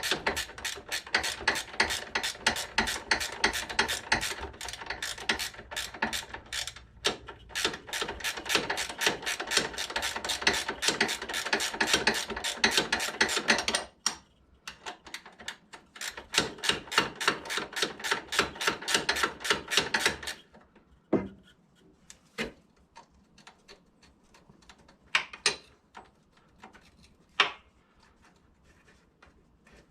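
Hand socket ratchet clicking rapidly and evenly as a bolt is turned. It stops about two-thirds of the way through and is followed by a few scattered light knocks and clinks of metal.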